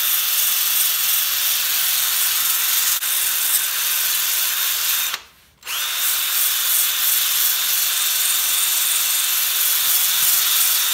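Electric drill spinning a brush attachment against a steel saw-blade knife blade to clean its surface: a steady whirring hiss with a thin high whine. About halfway through it cuts out for about half a second, then spins back up.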